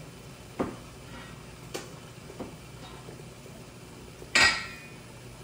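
A few light knocks, then a louder clatter with a brief ringing tail about four seconds in: kitchenware being handled and set down.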